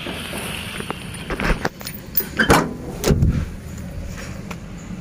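Pickup truck door being opened and someone climbing into the cab: a string of latch clicks and knocks, the loudest two about two and a half and three seconds in.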